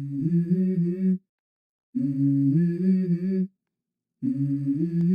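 Background music: a hummed vocal intro to a song, three phrases of about a second and a half each with short silent pauses between, the pitch stepping between notes.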